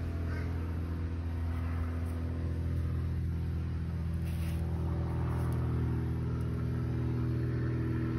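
A steady low motor hum, even in pitch, with no change through the whole stretch.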